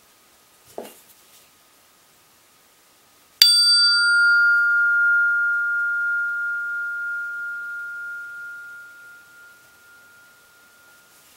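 A slice of steel rail hung from rubber bands is struck once and rings like a bell, a clear tone that fades slowly over about seven seconds. A faint knock comes a couple of seconds before the strike.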